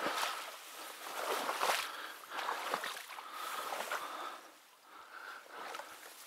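Repeated swishing and splashing, roughly one stroke a second, of someone moving through shallow water and reeds.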